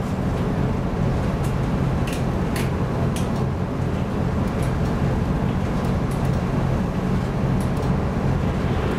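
Steady low drone of a ship's engine and hull, heard from inside the wheelhouse, with a few sharp ticks scattered through it.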